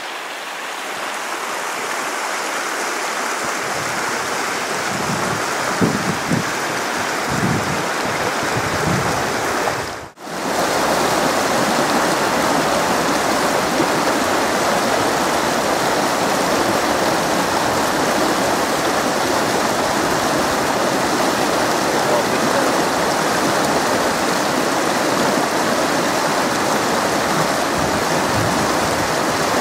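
Steady rush of a rocky mountain river running over riffles and small rapids, with a few low buffets of wind on the microphone in the first ten seconds. About ten seconds in the sound drops out for a moment, then the river rush carries on louder and steady.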